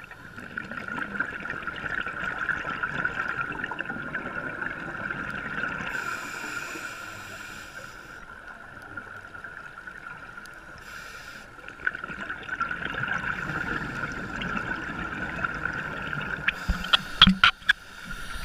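Muffled underwater noise picked up by a diving camera: a steady rushing hiss that swells, fades in the middle and swells again, then a quick run of clicks and knocks near the end.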